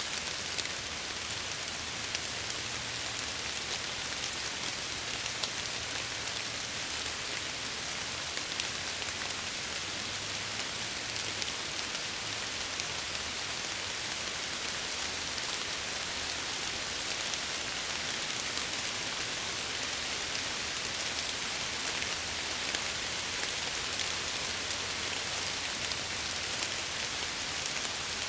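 Steady rain hissing against window glass, with scattered sharp drop ticks.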